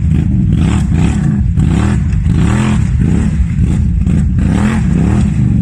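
Off-road vehicle engine revving hard, its pitch rising and falling again and again, with a clatter of mud and running gear under it.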